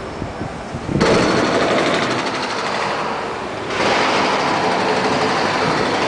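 A dense, rapid mechanical rattle from engine-driven machinery, cutting in abruptly about a second in and changing character again a little past the middle.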